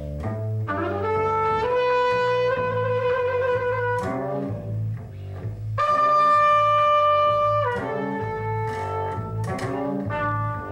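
Live free jazz on two trumpets and double bass: the bass plays steady low notes throughout while the trumpets play over it. One holds a long note that wavers near its end, a louder long note comes about six seconds in, and quicker, shorter phrases follow.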